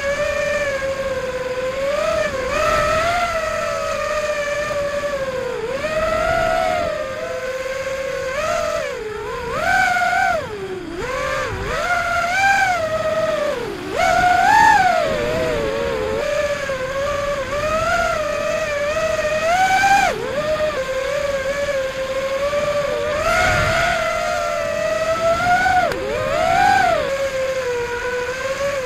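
Brushless motors of a 5-inch FPV racing quadcopter (2205-size, 2300kv, on a 4S battery) whining in flight, the pitch swooping up and down as the throttle is punched and eased through tight turns. Recorded on the onboard camera, with wind noise underneath.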